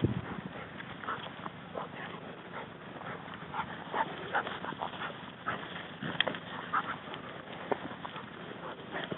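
Hunting dogs moving about close by: scattered short taps and rustles with brief faint high sounds, and a single knock right at the start.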